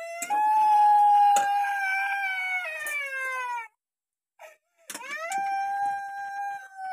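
Two long, high howling calls from an animal. The first holds steady and then steps down in pitch; after a short break the second slides up, holds, and drops in pitch near the end.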